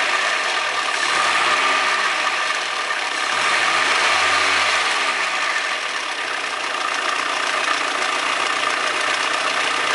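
Audi 100 2.0 16V engine idling, blipped twice so its pitch rises and falls. The owner hears a strange rattle or tapping in it and suspects bad lifters or a rod bearing.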